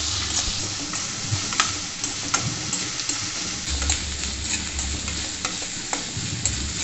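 Sliced onions, garlic and ginger sizzling in hot ghee and oil in a stainless steel pan, stirred with a metal spatula that scrapes and clicks against the pan.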